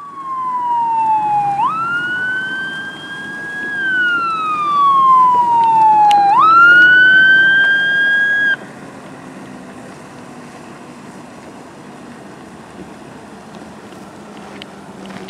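Emergency vehicle siren wailing: the pitch falls slowly and sweeps quickly back up, twice, then the siren cuts off abruptly about eight and a half seconds in. After it, only a steady, much quieter background rush.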